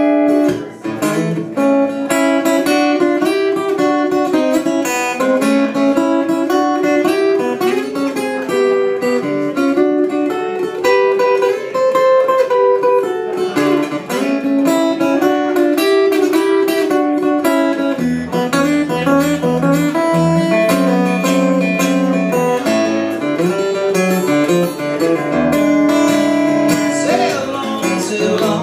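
Steel-string acoustic guitar playing an instrumental country blues break, a run of picked notes with no singing. Deeper bass notes join in about two-thirds of the way through.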